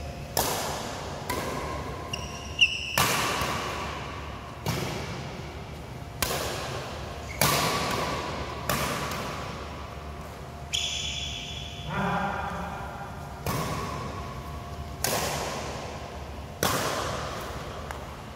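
Badminton rackets hitting a shuttlecock in a steady rally, a crisp hit about every one and a half seconds, some closer and louder than others. Each hit echoes in the large hall.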